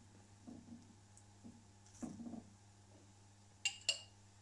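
Faint scraping of a metal spoon spreading pizza sauce over a pizza base, then two quick metallic clinks of the spoon close together near the end.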